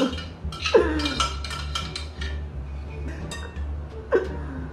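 Kitchen utensils clinking and scraping against dishes in quick, irregular knocks, over a steady low hum.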